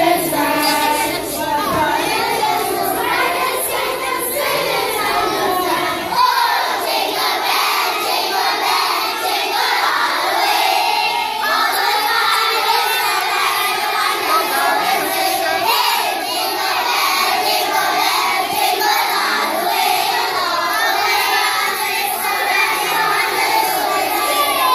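A group of young children singing a Christmas carol together in chorus.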